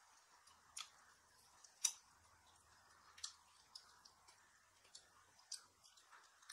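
Quiet eating sounds: scattered sharp clicks and crunches from biting and chewing fried chicken, roughly one a second, the loudest about two seconds in.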